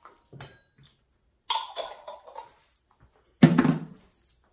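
Kitchen items being handled on a counter: a few light knocks and rattles, then one louder short thump about three and a half seconds in.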